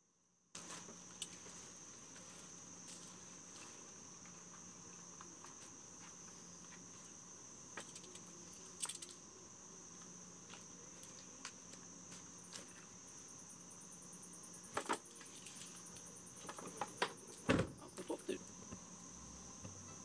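Crickets chirring steadily at one high pitch, with scattered pops and crackles from a wood fire burning in a tabletop fire pit. A cluster of louder knocks comes near the end.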